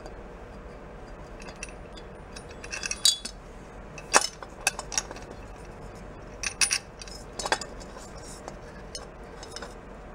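Small metal parts clinking and tapping against a chrome motorcycle headlight bucket as a fitting with a nut and washer is worked into a hole in it. Scattered sharp clinks and short rattles, the loudest about three and four seconds in.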